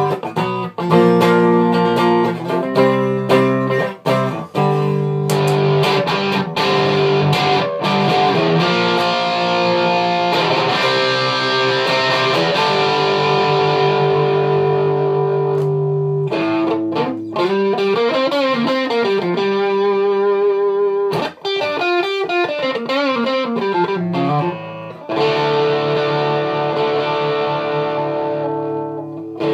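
Home-built Stratocaster electric guitar being played. Separate picked notes come first, then held chords, then notes that waver and bend in pitch through the middle, and chords again near the end.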